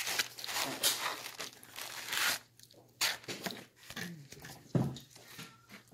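Packaging being torn and crinkled in long rustling bursts over the first two and a half seconds, with another short burst about three seconds in.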